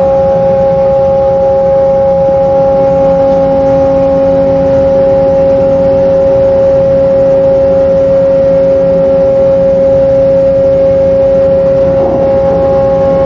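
Offshore vessel's machinery running with a steady hum: one strong unchanging tone with several fainter tones over a rough noise.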